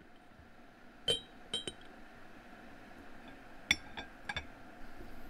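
Dishes clinking: a handful of light, separate clinks, each with a short ring. They come in two clusters, about a second in and about four seconds in.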